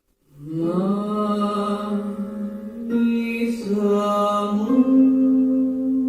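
Music with long, held, chant-like notes, entering about half a second in and moving to a higher held note near the end.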